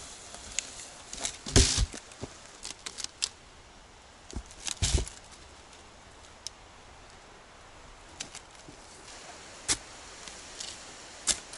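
Scattered snaps and cracks of dry twigs and brush as a person moves and handles branches in forest undergrowth. There are two louder crackling bursts with a dull thud, about one and a half seconds in and again about five seconds in, then a few single sharp ticks.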